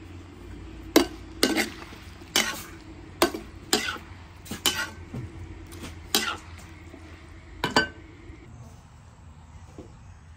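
Metal spatula stirring pork and cabbage in a metal wok, about nine sharp scrapes and clanks against the pan at irregular intervals. The clanks stop about eight seconds in.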